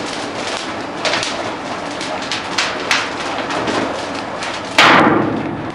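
Dry Christmas tree burning: continuous crackling of the flames with sharp pops, and a loud burst near the end that fades over about a second.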